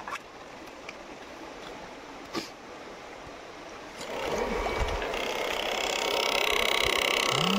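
Faint handling noise with a single click, then about four seconds in a louder, steady rush of running stream water with a high, steady whine over it.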